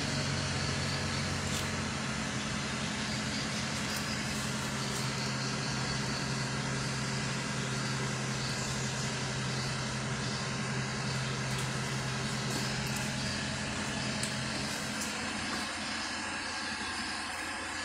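Steady low mechanical hum over a background hiss; the hum fades out about fifteen seconds in.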